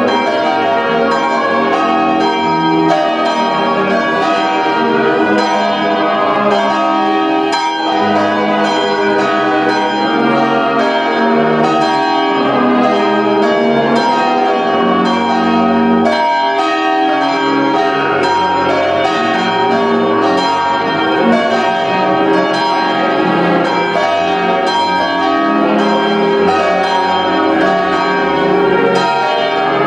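Church bells ringing continuously, many strokes overlapping into a steady peal.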